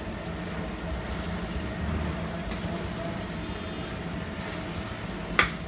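Chicken being stirred with a spoon in a frying pan on a gas stove, under a steady low hum, with one sharp clink about five seconds in.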